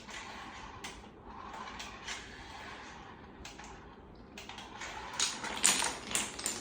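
Rustling and light knocking from an RC car run through a homemade maze, with a flurry of louder sharp clacks about five to six seconds in.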